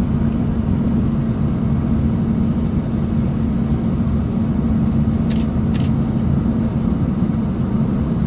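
Steady low rumble of an idling vehicle engine. Two short hissy sounds come about five and a half seconds in.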